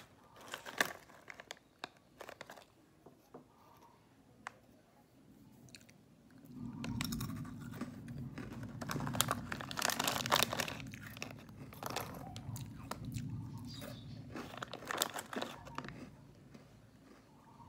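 Plastic snack wrapper crinkling and rustling at first. From about six seconds in comes close-up crunching and chewing of small crisp snack crackers, lasting about ten seconds before it fades.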